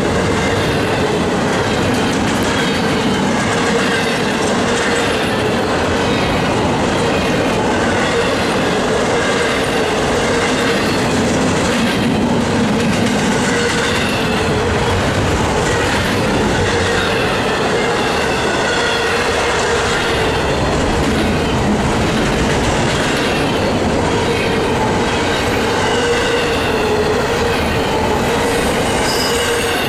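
Cars of a long intermodal freight train rolling past at track speed: a steady, loud noise of steel wheels on rail, with a thin squeal from the wheels wavering above it.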